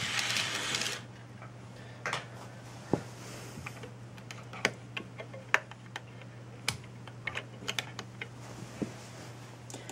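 An N gauge model train runs on its track for about a second and then stops abruptly. After that come scattered small plastic clicks and taps as a hand handles the rolling stock on the track, over a steady low hum.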